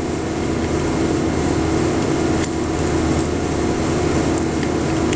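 Steady mechanical hum of running shop equipment, with a couple of faint clicks as a locking-plier clamp and the metal handle parts are handled.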